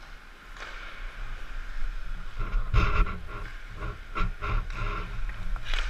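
Ice hockey play picked up by a goalie's helmet camera: a steady low rumble, then from about two and a half seconds in a quick run of short scrapes and knocks, with one more near the end.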